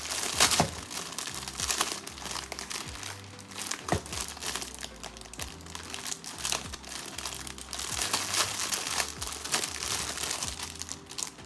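Plastic wrapping of a pack of paper napkins crinkling and rustling in irregular bursts as it is opened and handled, with the loudest crinkles about half a second in.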